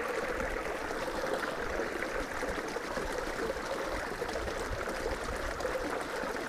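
Creek water flowing steadily, a constant rushing trickle.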